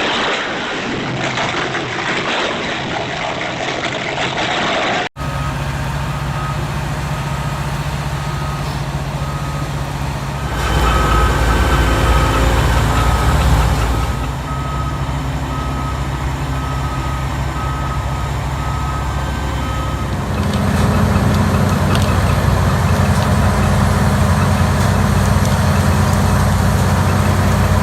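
Heavy diesel machinery running steadily, with a backup alarm beeping at an even pace for about ten seconds in the middle. The engine grows louder near the end.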